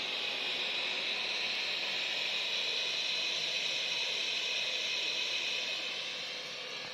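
Alfawise V10 Max robot vacuum cleaning a shaggy carpet: its suction fan and brushes give a steady, airy, high-pitched rushing noise that eases slightly near the end.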